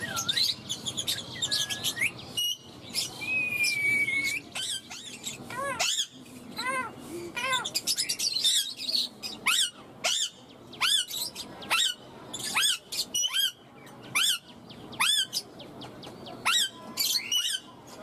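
Indian ringneck parakeet calling: a string of short chirps and squawks, a held whistle about three seconds in, then short sharp calls repeated about one to two times a second.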